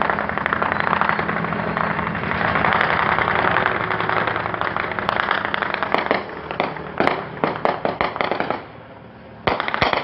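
Gunfire: a dense stream of sharp cracks that thins after about six seconds into separate shots several a second, with a short burst near the end. A steady low hum from the helicopter overhead runs under the first few seconds.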